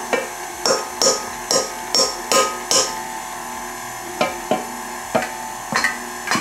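A spatula scraping and knocking against the inside of a metal stand-mixer bowl in a run of short strokes, quick at first and then more spread out, over background music.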